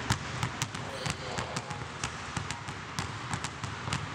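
Two basketballs dribbled hard on a hardwood gym floor: a quick, uneven run of sharp bounces, about four a second.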